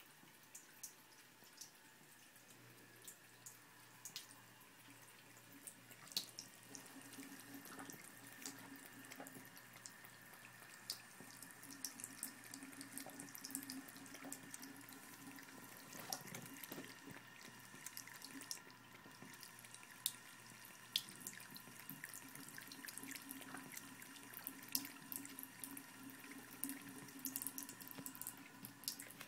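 Thin stream of tap water running faintly from a bathroom faucet into a sink, with frequent small irregular ticks and splashes as a Bengal cat laps at the stream with its tongue.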